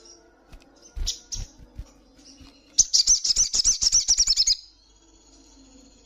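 Olive-backed sunbird giving a rapid, loud trill of high chirping notes, about two seconds long, starting about three seconds in. Before it come a short high chirp and a few dull thumps about a second in.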